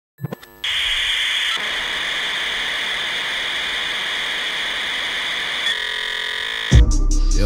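Steady static-like hiss with a high whine, opened by a couple of clicks; a hip-hop beat with heavy bass cuts in near the end.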